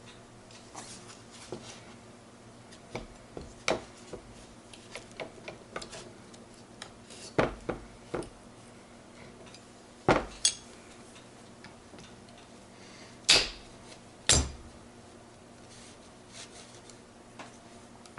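Steel gear and synchro parts of a Ford 2000E gearbox clinking and clicking as they are handled and fitted onto the mainshaft, with a few sharper metal knocks about 7, 10, 13 and 14 seconds in.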